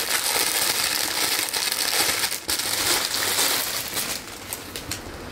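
Plastic garment packaging crinkling and rustling as a piece of clothing is handled and pulled out, dense for about four seconds, then dropping to a few lighter crackles.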